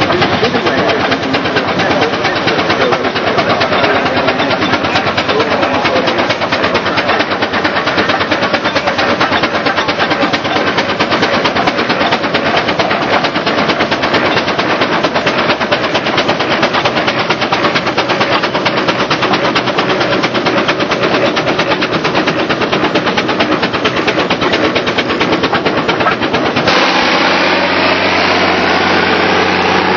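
Steam traction engine running, a dense rapid mechanical clatter. About three seconds before the end the sound changes abruptly to steadier running with low steady tones and a slowly rising whine.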